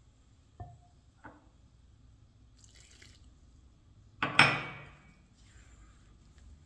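A spatula clicking and scraping through a dry flour dough in a ceramic bowl. About four seconds in there is a short loud splash of water poured from a glass mug into the dough, which dies away within a second.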